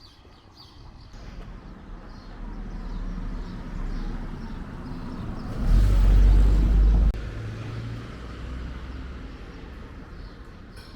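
A motor vehicle passing: a low engine rumble that builds, is loudest for about a second and a half just past the middle, then eases off.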